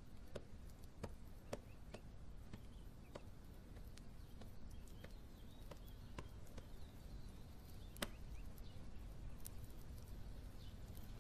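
Faint room tone with a low hiss and scattered small clicks and ticks, one sharper click about eight seconds in.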